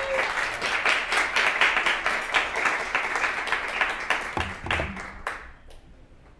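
Audience applauding: dense clapping from many hands that tapers off after about five seconds, with a brief low bump near the end.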